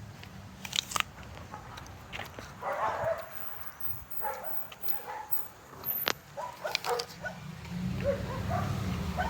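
A dog barking several times, with a few sharp clicks in between.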